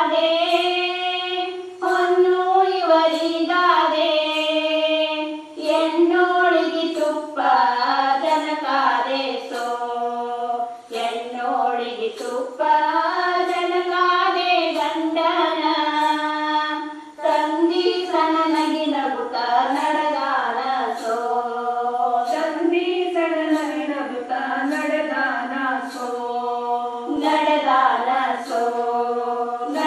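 Group of women singing a shobana pada, a Kannada folk wedding song, together in one slow melody. The notes are long and bending, with short breaks for breath every few seconds.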